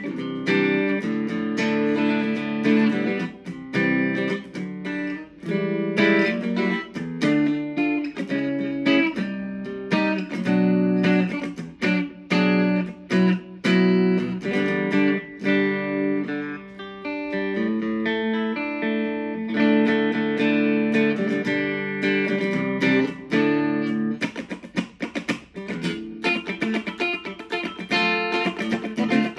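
Ibanez Gio electric guitar with a Tokai pickup set, played through an amp on one pickup alone rather than a pickup mix: chords and picked notes, with a few brief pauses.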